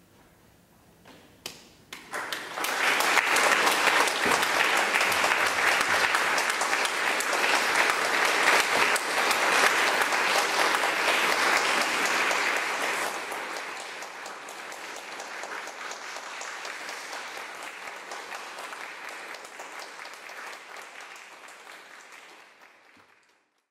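Audience applauding in a small concert hall: a few single claps, then full applause about two seconds in. It eases to a lower level about halfway through and fades out near the end.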